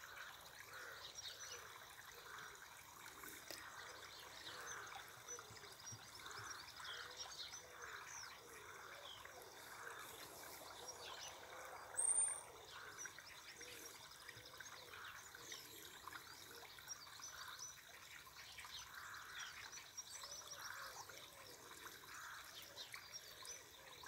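Faint outdoor ambience of water trickling and small bird chirps. One brief, louder high-pitched chirp comes about twelve seconds in.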